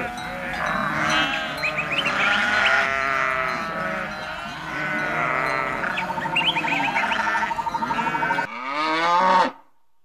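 A flock of sheep and goats bleating, with many calls overlapping each other. About nine seconds in, a single louder, drawn-out bleat stands alone, then the sound cuts off suddenly.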